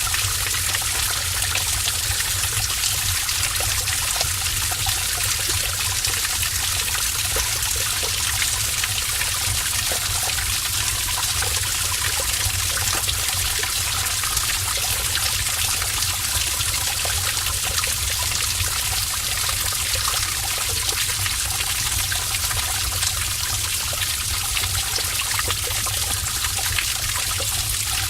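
Heavy stream of water rushing and splashing steadily inside a cave.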